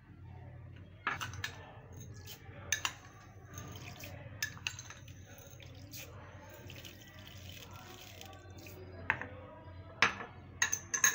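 A metal spoon scooping granulated sugar from a glass bowl and tipping it into milk in a plastic bowl, spoonful after spoonful: scattered light clinks and scrapes over a faint low hum.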